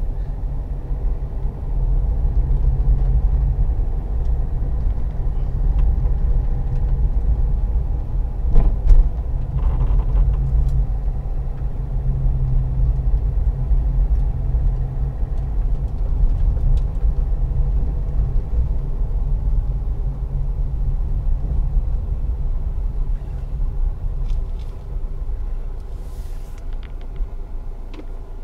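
Car driving on a fresh asphalt road, heard from inside the cabin: a steady low rumble of engine and tyres, with a single sharp knock about nine seconds in. The rumble dies down near the end.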